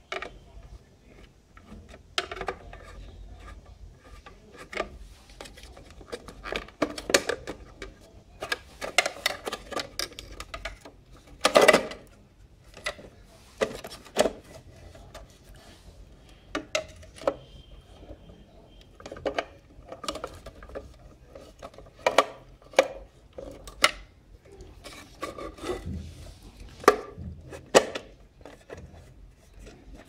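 A screwdriver working screws and hands handling the plastic housing of a Philips Pelican FC6050 handheld vacuum cleaner as it is taken apart: irregular clicks, knocks and scraping of metal on plastic.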